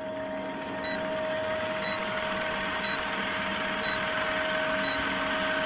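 Film-countdown sound effect: the steady whirring rattle of an old film projector running, with a held hum and a short high tick about once a second as the count goes down.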